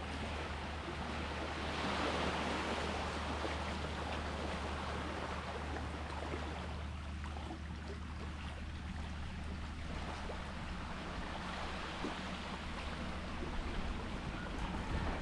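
Sea water washing and lapping at the shore, a continuous rush that swells about two seconds in, over a steady low rumble.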